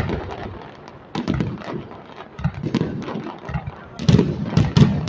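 Fireworks going off: a dense, irregular string of bangs and crackles, loudest about four seconds in.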